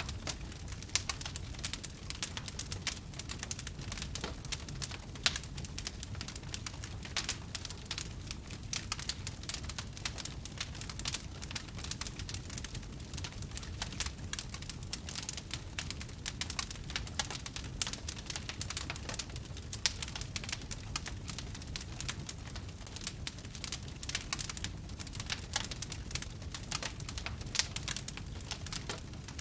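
Wood campfire crackling and popping: a dense, irregular patter of small snaps over a low, steady rumble from the burning fire, with one louder pop about five seconds in.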